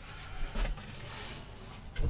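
Faint rustling and handling noises of a person moving about in a truck cab, with a soft scrape or knock about half a second in.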